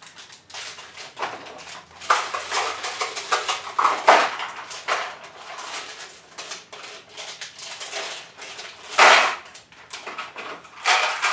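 M&M's candies rattling into the small plastic bins of a Milwaukee Packout low-profile compact organizer, with plastic bins clicking and clattering as they are handled. A louder burst of rattling comes about nine seconds in.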